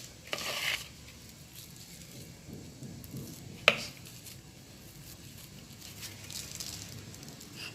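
Soft kitchen handling sounds of semolina dough being worked by hand, with brief rustles near the start and after about six seconds, and one sharp click of a utensil or tray about three and a half seconds in.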